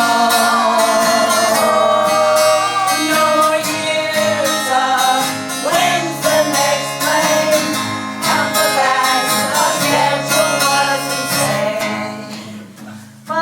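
Live song: acoustic guitar accompanying a woman singing long held notes, growing quieter near the end.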